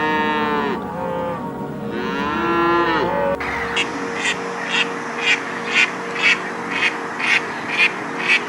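Two drawn-out animal calls with arching pitch. From about three and a half seconds in, a duck quacks steadily about twice a second, over background music.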